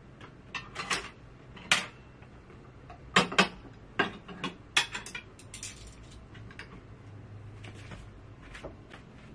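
Ceramic bowls and plates clinking and knocking together, with chopsticks rattling in them, as they are gathered up and stacked. A quick run of sharp clinks comes in the first five seconds, with fewer and softer ones after.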